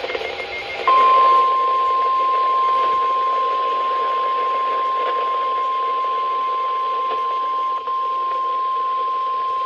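NOAA Weather Radio warning alarm tone: a single steady 1050 Hz tone over radio static, starting about a second in and holding for almost nine seconds, with a brief dropout near the end. It is the attention signal that announces an urgent warning broadcast is about to follow.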